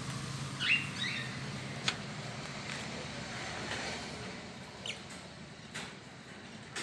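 Small caged parrots chirping in a few short calls, loudest about a second in, with a few sharp clicks in between.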